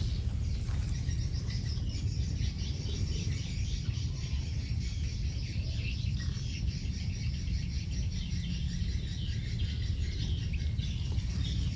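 Outdoor ambience of insects and birds chirping steadily, over a constant low rumble.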